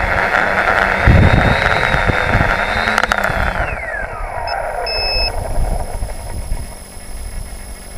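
FPV tricopter's brushless motors and propellers buzzing with a steady high whine. About three seconds in there is a click, and the motors wind down with a whine falling steeply in pitch. Low thumps of wind on the microphone come near the start.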